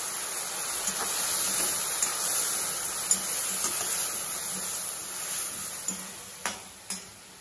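Taro root cubes sizzling in hot oil in a steel kadai just after a splash of water, a steady hiss that fades over the last couple of seconds. A few clicks of the slotted steel ladle against the pan come near the end.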